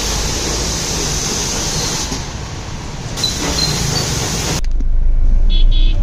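Traffic and tyre hiss on a wet, puddled street as a car pulls away. About four and a half seconds in it cuts abruptly to inside the moving Tata Nexon diesel: a louder, steady low drone of engine and road noise in the cabin.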